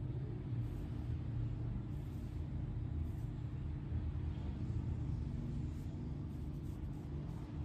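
Steady low background rumble with a faint constant hum, and a few faint soft rustles now and then.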